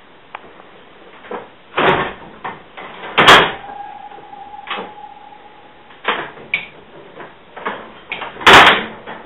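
Signal box lever frame being worked by hand: heavy metal levers clunking over in the frame, with loud clanks about two, three and eight and a half seconds in and lighter clicks of the lever catches between. A ringing note hangs for about two and a half seconds after the loudest clank.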